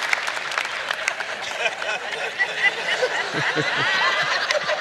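Large audience laughing at a joke, with clapping that thins out after about the first second.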